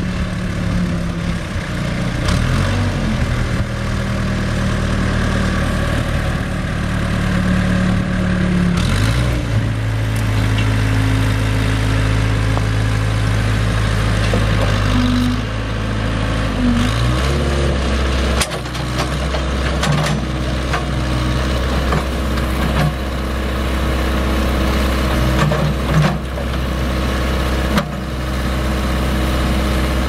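Case 580E backhoe's Cummins four-cylinder diesel running steadily while the backhoe stabilizers and boom are worked. Its engine note shifts up about nine seconds in and drops to a lower pitch at about seventeen seconds.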